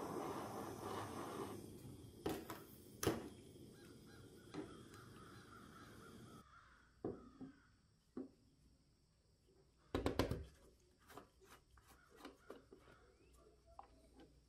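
A handheld gas torch flame hisses steadily as it heats a small steel part, with two sharp clicks a few seconds in. The hiss stops about six seconds in. Scattered small knocks and clicks follow as a plastic bottle is handled and its cap is unscrewed, the loudest knocks about ten seconds in.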